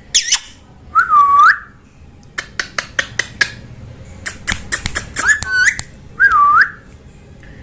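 Pet parrot whistling short notes that dip and rise, with a run of sharp clicks and chirps in the middle.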